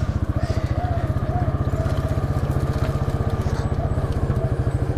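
ATV engine idling steadily, a fast, even low pulsing.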